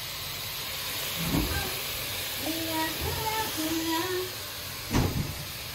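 Steady hiss of leafy greens cooking in a pot over a gas burner, with two knocks, the louder near the end.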